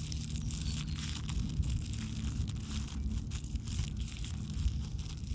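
Rustling and crackling close to the microphone over a steady low rumble.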